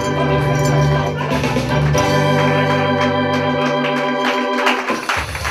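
Organ music playing held chords, with a change of chord about two seconds in, stopping about four and a half seconds in. Clapping starts near the end.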